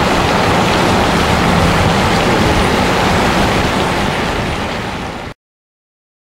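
Union Pacific steam excursion train's passenger cars rolling past at speed, a steady rumble and rush of wheels on rails. It eases slightly and then cuts off abruptly about five seconds in.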